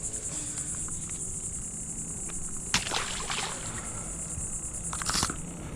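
Steady high-pitched insect chorus, crickets, with two brief louder noises, one about three seconds in and one near the end.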